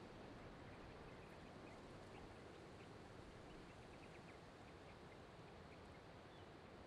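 Faint, steady wash of ocean surf, with many small bird chirps scattered through it.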